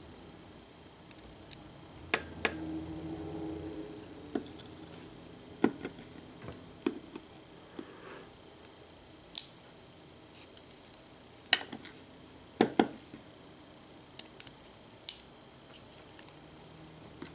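Small metal clicks and taps at irregular intervals as the pin chambers of a Lockwood pin-tumbler cylinder are emptied, the pins and springs being taken out one chamber at a time.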